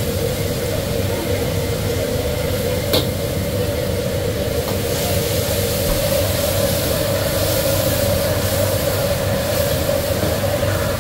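Commercial gas wok burner running at full flame with a steady rushing noise while shredded pork sizzles in the wok during stir-frying. A metal ladle clanks once against the wok about three seconds in.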